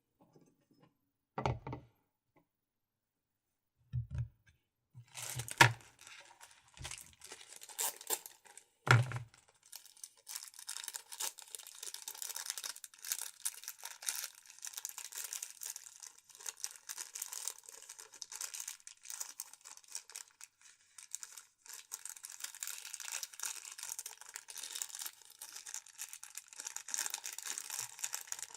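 Packaging of a GoPro Hero 4 Silver being handled: a few separate knocks, then from about ten seconds in a continuous crinkling rustle as the packaging is worked open.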